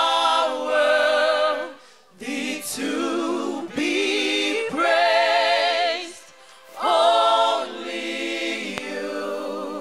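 Choir singing a gospel worship song without instruments, in four sung phrases with short breaks between them.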